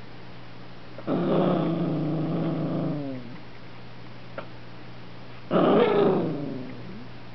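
A mildly upset puppy growling twice: a drawn-out growl of about two seconds that sags in pitch at its end, then a shorter one that falls in pitch, with a faint click between them.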